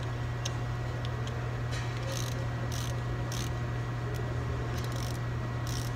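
Ratchet wrench being worked on the nut of an axle shaft, giving short bursts of clicking several times, some about half a second apart. A steady low hum runs underneath.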